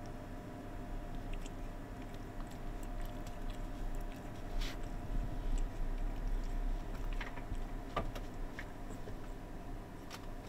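A cat sniffing and snuffling right at the microphone, heard as soft scattered clicks and crackles, with a few sharper ticks about halfway through. A steady low hum runs underneath.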